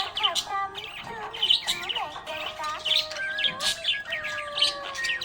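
Budgerigars chirping and warbling in quick, busy runs of short calls, over a melodic tune with held notes.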